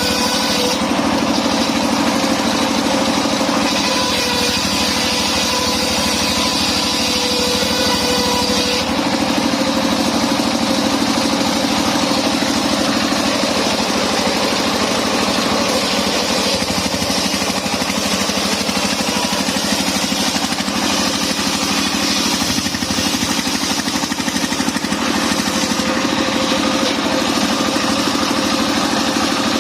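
Engine-driven portable circular sawmill running steadily, its steady tones shifting in pitch about nine seconds in.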